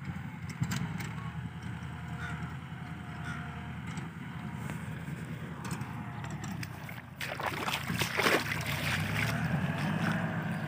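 Old Kubota tractor's diesel engine running steadily under load while pulling a disc plough, heard from a distance as a low, evenly pulsing rumble. From about seven seconds in, a louder rustling noise joins it.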